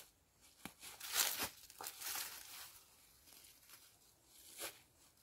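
A stone-weighted throw line being thrown up over a tree branch and handled: a swishing rustle, loudest about a second in, with a few sharp clicks, and a fainter click near the end.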